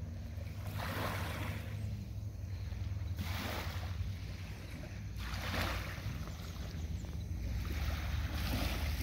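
Small waves lapping on a sandy beach, soft washes every second or two, over a steady low rumble of wind on the microphone.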